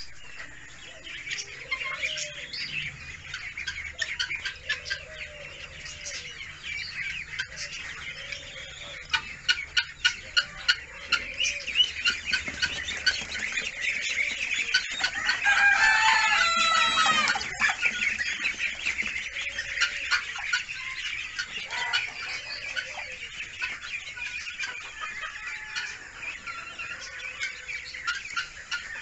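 A large brood of Muscovy ducklings peeping continuously in a dense, high-pitched chorus. Lower clucking calls repeat every second or two, and a louder drawn-out call rises above the chorus about halfway through.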